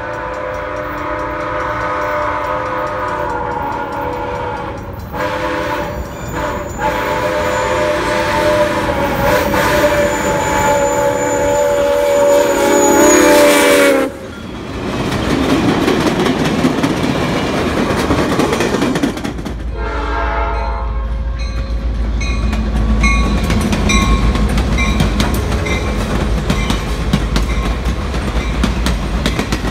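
A steam locomotive's whistle blows long blasts as it approaches, with two short breaks, and cuts off suddenly about halfway through. Then comes the rumble of a train passing close, and later passenger cars rolling by with a steady rhythm of wheel clicks over the rail joints.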